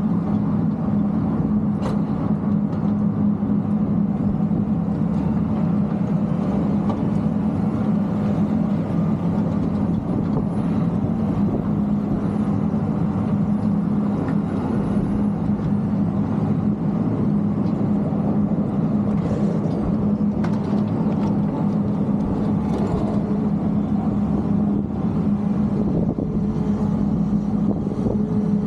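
Heavy snow-removal machinery's diesel engine running steadily at a constant speed, a deep even hum with no pauses.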